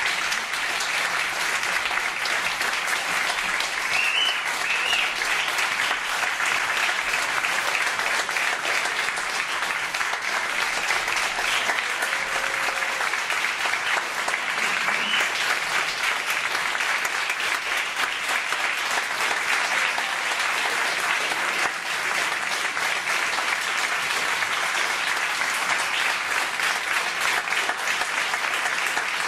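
A theatre audience applauding steadily, a dense sustained clapping.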